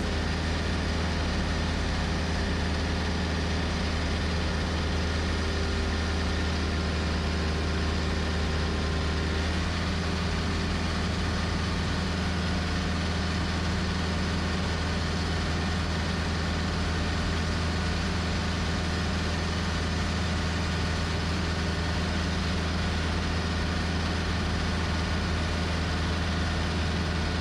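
John Deere 110 TLB tractor-loader-backhoe's diesel engine running steadily under load while driving a belt-driven three-blade finish mower. The engine tone shifts slightly about nine or ten seconds in.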